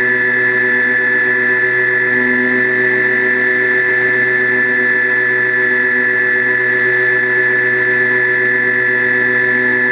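Electric motors and propellers of an FPV model aircraft, heard from the camera on board: a loud, steady whine at an even throttle.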